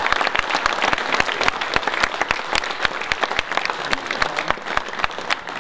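Audience applauding, a dense patter of many hands clapping that eases off slightly near the end.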